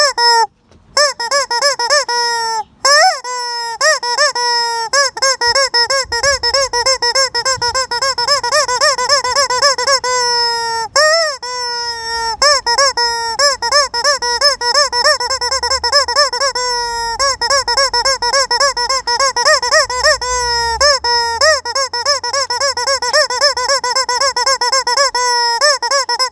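Squeaky rubber chicken toy squeezed over and over: a loud, rapidly wavering squeal that runs almost without pause, broken by a few brief gaps.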